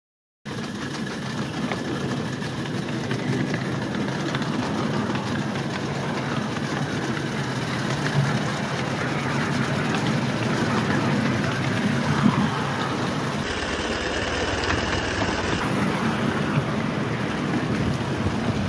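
A 5-inch gauge de Winton-type vertical-boiler steam locomotive running along miniature railway track: a steady mix of engine and wheels-on-rails noise that starts about half a second in.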